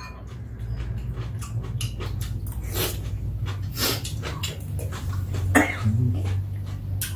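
Two people eating with metal spoons: spoons clicking against bowls, with slurping and chewing noises over a steady low hum. A short cough about five and a half seconds in.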